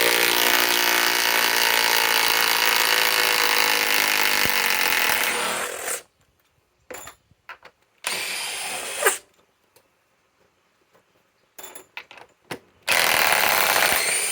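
DeWalt Atomic DCF921 compact impact wrench on a 5Ah PowerStack battery running for about six seconds, its pitch dropping slightly, backing out 6-inch lag bolts. About two seconds later it gives a short burst of about a second. A few clicks follow, then near the end another run of about two seconds.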